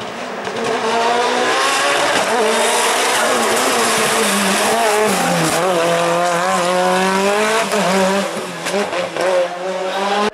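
A race car's engine driven hard on a hill-climb, getting louder over the first second as the car nears. It revs high, with the pitch dropping at gear changes about halfway through and again near the end.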